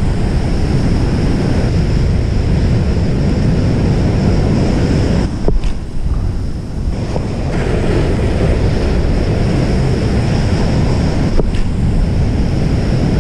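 Ocean surf breaking and washing up a sand beach, with wind buffeting the microphone. A couple of brief knocks stand out, about five seconds in and near the end.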